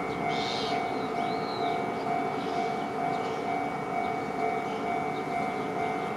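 Japanese level-crossing warning bell ringing in a fast, even repetition over the rumble of a train passing on the JR Gotemba Line.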